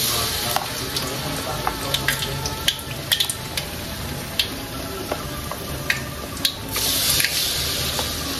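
Battered pieces deep-frying in hot oil in a wok, a steady sizzle that swells as fresh batter goes into the oil at the start and again about seven seconds in. Sharp clicks of a spoon against the bowl and wok are scattered throughout.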